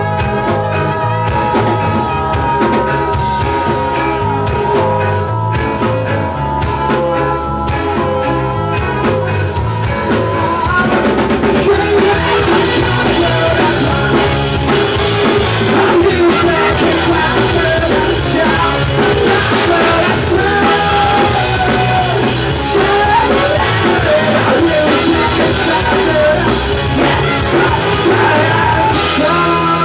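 Live ska-punk band playing, with drum kit, instruments holding sustained notes, and singing. The music gets fuller and louder about ten seconds in.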